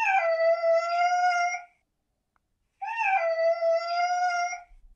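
Domestic cat meowing twice: two long meows, each with a short rise in pitch at the start and then held level, about a second apart.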